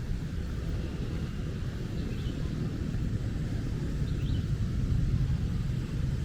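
Rain ambience with a steady low rumble of passing traffic, and two faint short chirps about two and four seconds in.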